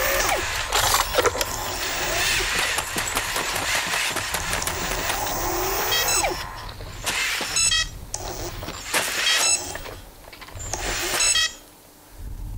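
Robot sound effects: servo motors whirring with rising pitch, mixed with mechanical clicks and rattles. From about halfway, four short clusters of electronic chirping tones come every second or two, and the sound drops low near the end.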